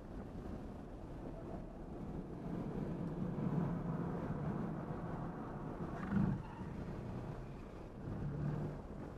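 Tesla Model 3 Dual Motor Long Range heard from inside the cabin, cornering and accelerating hard on a race track: steady tyre, road and wind noise with a low hum that swells twice, and a brief louder bump about six seconds in.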